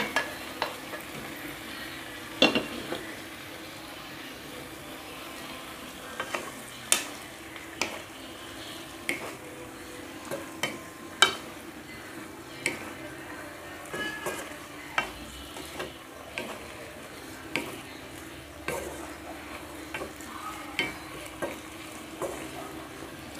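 Raw chicken pieces sizzling in oil with sautéed tomatoes in a granite-coated wok. A wooden spatula stirs them, scraping and knocking against the pan in irregular knocks about every second.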